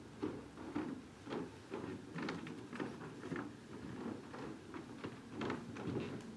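Soft, irregular rustling and light knocks in a hushed room, several a second: things being handled and people shifting about.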